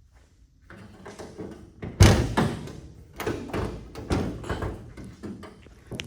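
Metal clunks and knocks from the body of a 1966 Chevrolet Impala being handled: a sharp, loud clunk about two seconds in, then several smaller knocks and rattles.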